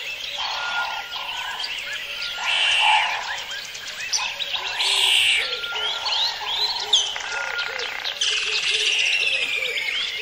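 Rainforest soundscape: a dense chorus of frogs croaking, with birds chirping and calling over it in many overlapping short notes and quick whistled sweeps.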